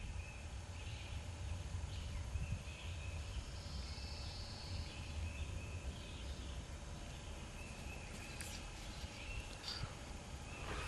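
Quiet outdoor ambience: short, faint bird and insect chirps over a low, fluctuating rumble of wind on the microphone.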